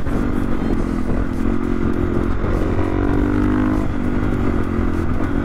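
KTM EXC 450 single-cylinder four-stroke engine running on the move through an Akrapovič exhaust with the dB-killer insert removed. The engine note holds steady and breaks off briefly about once a second, over low rumble.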